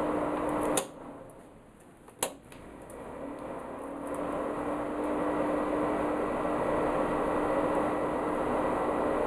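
Steady hum of a bench power supply's cooling fan, built like a computer power supply. About a second in it cuts off with a click and winds down. A second click comes a little after two seconds, and the hum builds back up and runs steady again.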